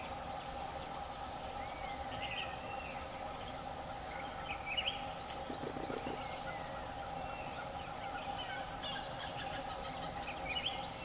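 Forest ambience: a steady insect drone under many short chirping and gliding bird calls, a few of them louder, with a brief low rattle a little past halfway.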